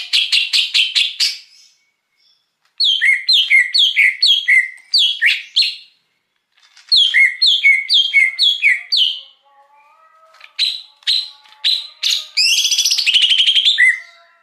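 Green leafbird (cucak hijau) singing in separate phrases: a fast run of chirps, then two phrases of repeated down-slurred whistled notes, and a last phrase of sharp chirps that runs into a dense warble near the end.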